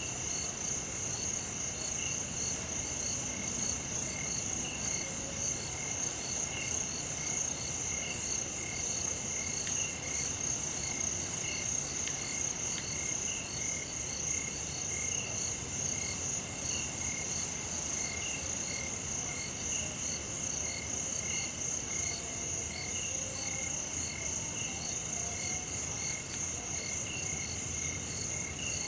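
Evening chorus of insects: a steady high-pitched trill with a second insect chirping at an even, regular pace, and faint frog calls beneath.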